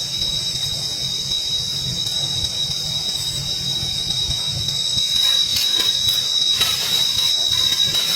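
A steady high-pitched drone, one even tone with a hiss just above it, over a low rumble; from about five seconds in, short clicks and crackles join it.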